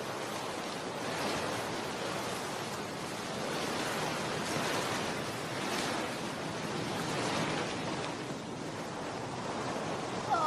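Wind blowing in a steady rush that swells and eases a little.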